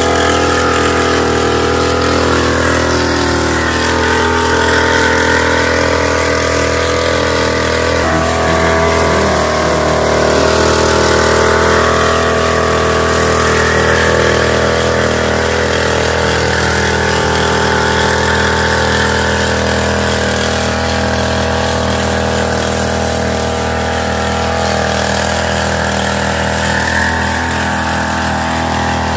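Small engine of a knapsack power sprayer running steadily while it pumps spray through the lance, its pitch wavering slightly now and then.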